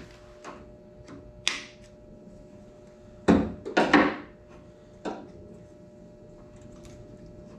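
A few short snips and clicks from a hand tool cutting back the plastic shielding on a wire: a light one about a second and a half in, two louder ones a little past the middle, and a last one about five seconds in. A faint steady hum sits underneath.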